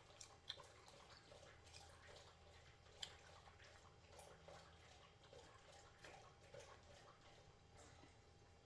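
Near silence with faint, scattered wet clicks and smacks of a wad of bubble gum being worked in the mouth, the clearest about three seconds in, over a low room hum.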